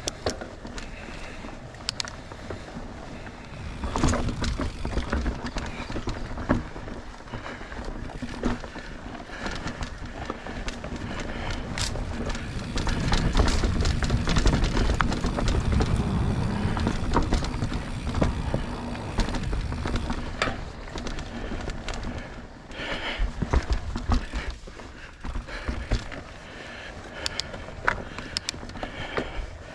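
Polygon mountain bike riding over dirt singletrack: tyres rolling over the trail with frequent clicks and rattles from the bike, swelling into a louder rumble for several seconds midway.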